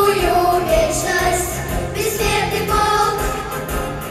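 A girls' vocal ensemble singing into microphones over an instrumental accompaniment with a steady beat.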